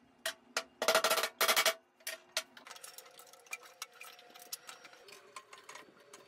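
Metal bar clamps being slid and tightened onto two freshly glued wooden strips: a few knocks, then two loud runs of rapid rattling clicks about a second in, followed by scattered fainter clicks and handling.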